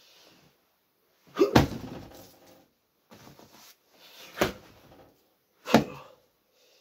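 Three heavy blows landing on a hanging punching bag, a sharp thud each, about a second and a half in, again past the middle and once more near the end.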